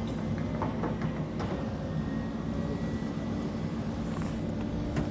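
An engine running steadily: a low, even hum.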